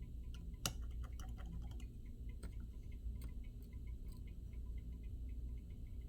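Small sharp clicks and taps of precision tools handling a phone's parts on a repair bench. One louder click comes just under a second in, followed by a quick cluster of small clicks and a few single ones later, over a low steady hum and faint regular ticking.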